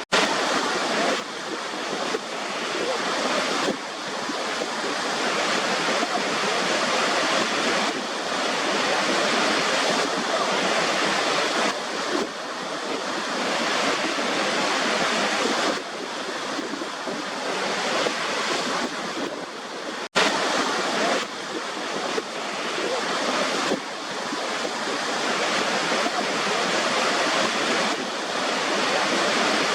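Steady rushing white noise that sounds like surf, swelling and easing every few seconds, with a brief dropout about twenty seconds in.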